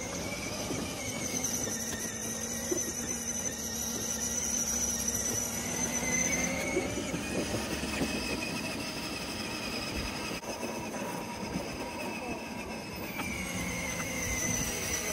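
12V electric ride-on toy car driving on asphalt: a steady electric-motor and gear whine that drifts slightly up and down in pitch, over the rumble of its hard plastic wheels rolling on the road.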